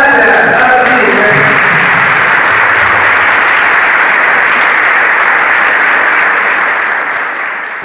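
A large audience applauding, with crowd voices still cheering in the first second; the clapping fades out near the end.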